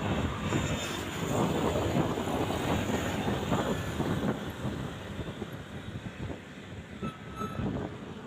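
A large road vehicle passing close by, a rush of engine and tyre noise that is loudest about two seconds in and then fades, with wind buffeting the microphone.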